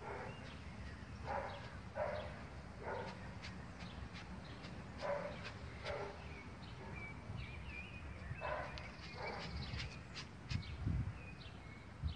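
A dog barking, about eight short barks at uneven intervals.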